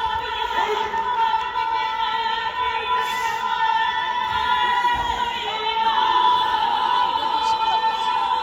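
Music with a high, operatic-style singing voice holding a long, steady note.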